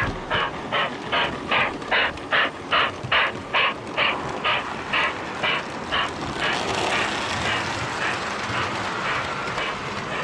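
Model O gauge steam locomotive's chuff, about two to three even chuffs a second, fading out about six seconds in and leaving the steady rolling noise of the train on the track.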